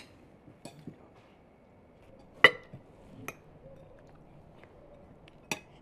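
Metal spoons and forks clinking against ceramic plates and bowls at a meal: a handful of separate clinks, the loudest about two and a half seconds in with a brief ring, two more close together near the end.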